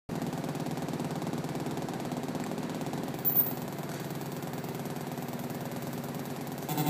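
Handmade electronic instruments played live, giving a rapid buzzing pulse over a low drone, with a short loud burst about a third of the way in.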